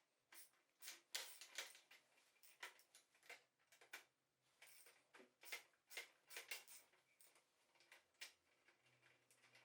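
Faint, irregular clicks and light taps, several a second at times, on hard objects.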